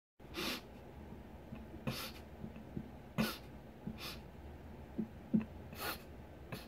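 A man's sharp, noisy breaths through nose or mouth, four of them a second or so apart, with small knocks and rustles between.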